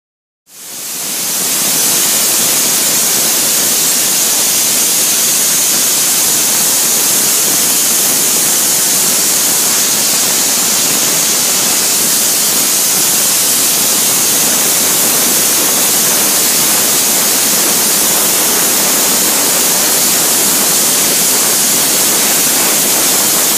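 Abrasive blasting: a hand-held blast hose nozzle jets compressed air and grit onto a large steel cylindrical part, a loud steady hiss that starts about half a second in.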